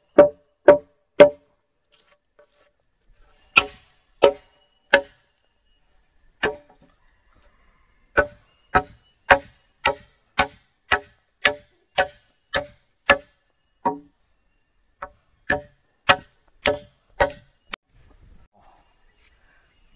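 Tool blows on wood, struck in runs of about two a second: three at the start, three more a few seconds in, then a long run of about a dozen and a final run of six, each blow sharp with a short ringing knock.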